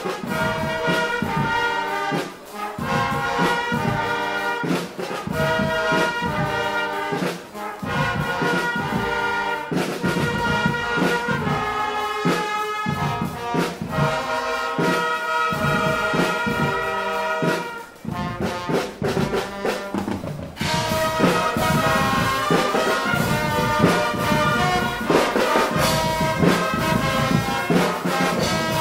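Guggenmusik carnival band playing live: trumpets and trombones over snare drums and bass drums. The band drops back briefly about two-thirds of the way through, then comes back fuller and louder.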